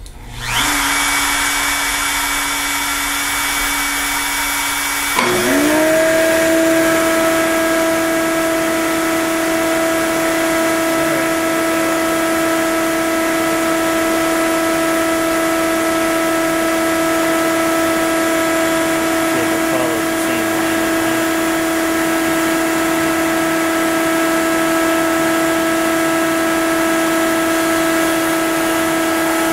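A CNC machine's trim router and its dust-extraction vacuum starting up and running. A steady hum sounds at first; about five seconds in there is a click, and a motor spins up quickly to a higher steady whine that holds.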